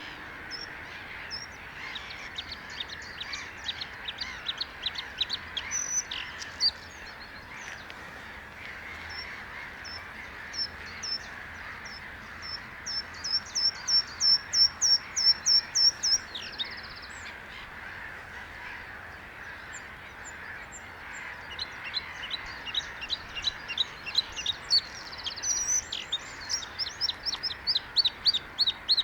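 Bluethroat singing: three phrases of rapidly repeated clear, high notes, starting about a second in, about twelve seconds in and about twenty-one seconds in. The later two speed up and end in a short buzzy trill, over a steady background hiss.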